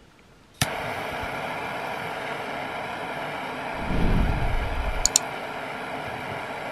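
A butane jet torch lighter clicks alight about half a second in, then burns with a steady rushing hiss from its jet flame. A brief low rumble comes about four seconds in, and two sharp ticks follow just after.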